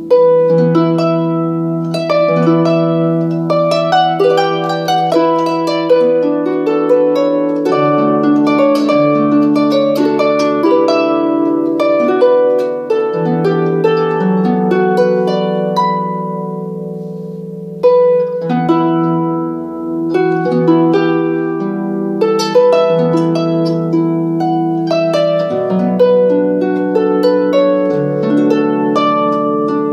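Harp played solo: a slow Irish air of plucked notes that ring on over held bass notes, with a short lull about two-thirds of the way through before a firm new pluck.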